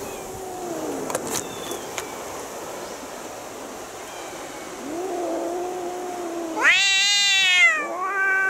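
Orange tabby cats caterwauling in a territorial standoff before a fight: long, low, wavering yowls. About two thirds of the way through, one yowl breaks into a loud, higher wail that rises and falls before sinking back to a low growling yowl.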